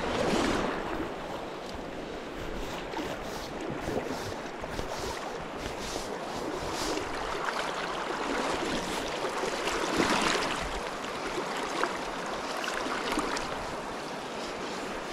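Steady rush of a river's riffled current, with wind buffeting the microphone. The rush swells briefly near the start and again about ten seconds in.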